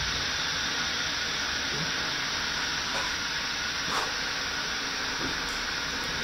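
Steady hiss throughout, with a faint short sound about four seconds in.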